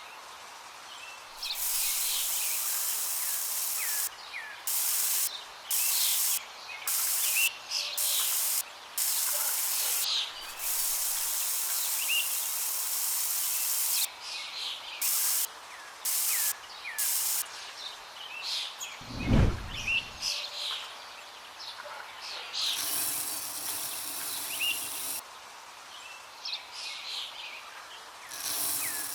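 Small birds chirping again and again, under about a dozen abrupt bursts of hiss, each from half a second to three seconds long. A single low thump comes about two-thirds of the way through.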